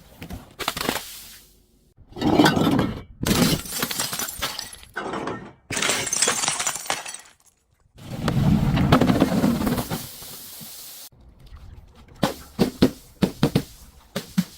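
Glass breaking and crunching in a series of loud bursts of a second or two each, followed near the end by several quick, sharp cracks.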